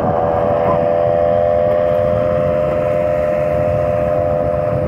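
Engine of a moving vehicle running at a steady cruise: an even engine tone over low road and wind rumble, holding pitch without revving up or down.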